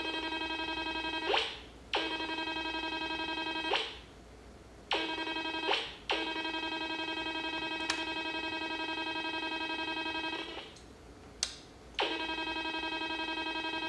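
Pipe Horn 100 utility locator's receiver sounding a steady buzzy tone as it picks up a function generator's signal near 480 kHz. The tone cuts out and comes back four times as the generator's frequency is tuned.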